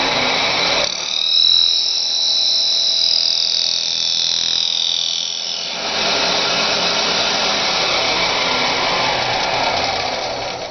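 Lathe spinning a small wooden rosette blank while a hand-held cutting tool on the tool rest cuts its face, a steady rasping cutting noise. From about a second in to about six seconds a high squeal takes over as the tool rubs the wood, then the rasping cut returns.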